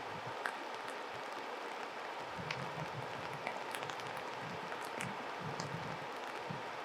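Stream rushing steadily, with a few short, sharp high calls of a brown dipper scattered through it.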